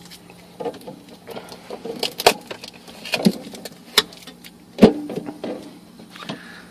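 Loose plastic fridge parts being handled and pulled free of packing tape: scattered clicks, rattles and knocks, with a sharp knock about two seconds in and the loudest one near five seconds.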